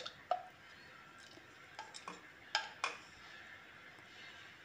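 Mixer-grinder jar knocking against the rim of a metal bowl as it is tipped and shaken out to empty the last chutney: about six sharp clinks.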